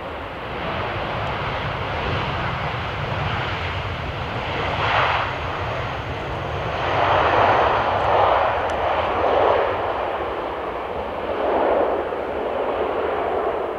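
Jet noise from a Boeing 737 MAX airliner's CFM LEAP-1B engines: a steady rushing sound that swells and eases several times, loudest in the second half.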